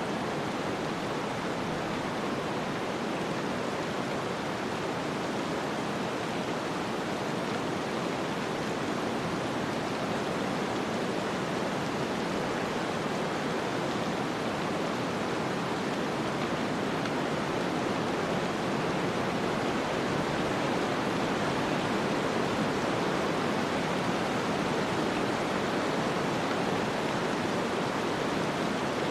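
Steady snowstorm wind ambience: an even, unbroken hiss with no gusts, knocks or other distinct events.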